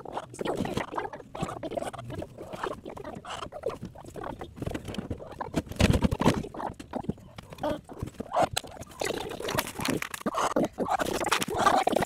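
Hens jostling in the straw of a wooden nesting box: scuffling, scratching and knocks against the wooden walls, with low hen murmurs. A louder scuffle comes about halfway through.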